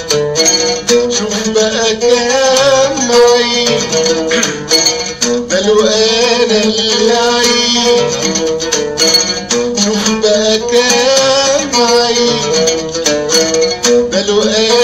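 Oud playing an instrumental passage: a quick plucked melody over steady held notes.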